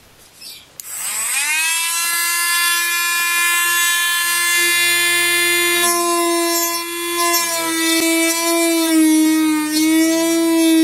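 A handheld rotary tool spins up about a second in to a steady high whine. From about six seconds its pitch wavers and dips again and again as the cone-shaped grinding bit bears on the end of a guitar saddle, grinding it to a slope.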